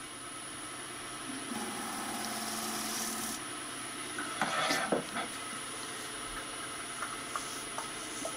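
Wood lathe running steadily at about 600 rpm, spinning a yew log between centres, with a steady high whine. About halfway through, a 3/8-inch spindle gouge bites into the wood in a short, louder scraping burst.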